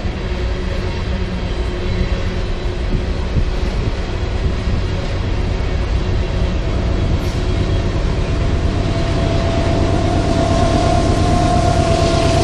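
Freight train cars (tank cars and a covered hopper) rolling past with a steady rumble of wheels on rail. Over the last few seconds it grows louder and a steady whine comes in as the rear diesel locomotives draw near.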